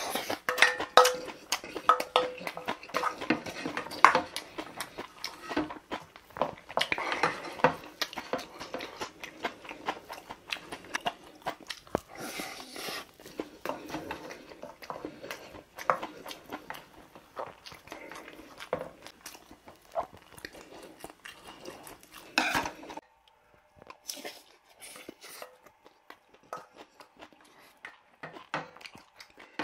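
Close-up eating sounds: chewing and slurping mouthfuls of stir-fried rice and ramen, with a wooden spoon clinking and scraping in a stainless steel bowl. The clatter thins out about three-quarters of the way through, leaving quieter chewing.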